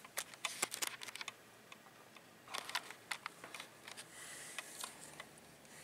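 Faint key clicks on a laptop keyboard, tapped in short irregular bursts.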